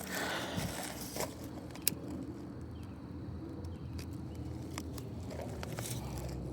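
Newly lit fire in a firepit crackling faintly, with scattered small snaps and ticks, a brief rustling burst at the start and one sharper snap about two seconds in.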